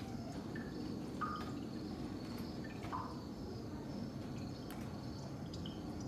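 Short drip-like plinks and small chirps, roughly one a second, over a steady low hum.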